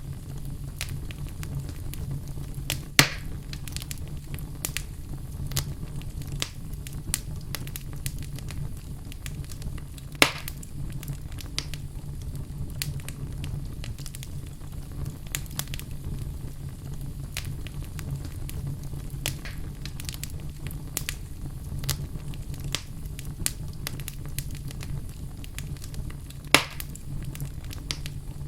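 Wood fire burning in a fireplace, crackling with many small snaps over a steady low rumble. Three sharp, louder pops stand out, spread irregularly through the stretch.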